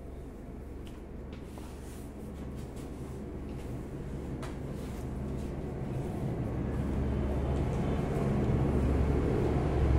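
Low, steady engine hum that grows gradually louder, with a few faint light ticks in the first half.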